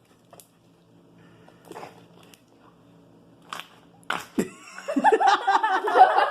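A few faint clicks and rustles of handling over a low hum, then, from about five seconds in, loud laughter.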